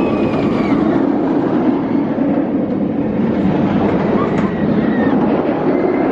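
Nemesis, a Bolliger & Mabillard inverted steel roller coaster, with its train running loudly along the track in a steady, unbroken rumble.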